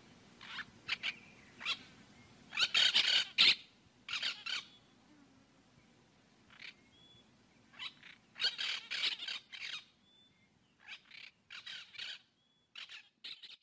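Birds calling: irregular clusters of short, harsh squawking calls, the loudest about three seconds in, with a few faint short high whistles between them.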